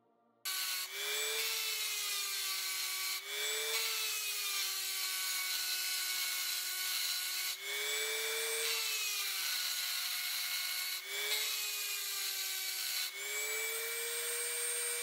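Handheld Dremel-style rotary tool running at high speed with a small cylindrical grinding bit, grinding notches into the steel spine of a knife blade: a steady high whine over a harsh grinding hiss. It starts about half a second in, and its pitch jumps briefly and settles back at four or five points.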